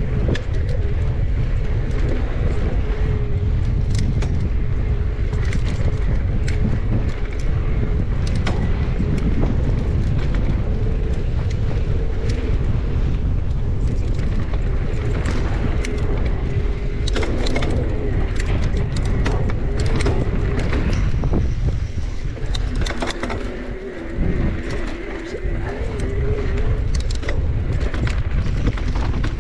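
Mountain bike riding fast over dirt singletrack: heavy wind rumble on the action camera's microphone, with a wavering hum, tyre noise and scattered clicks and rattles from the bike over rocks and ruts. The sound dips briefly a little before the end.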